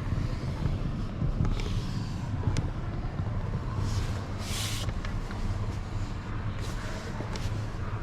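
A car's steady low rumble of engine and road noise, with brief hissing bursts about two and four and a half seconds in.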